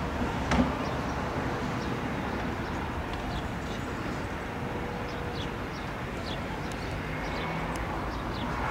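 Seaton Tramway open-top double-deck electric tram running along its narrow-gauge track as a steady noise, with small birds chirping. A couple of sharp clicks come about half a second in.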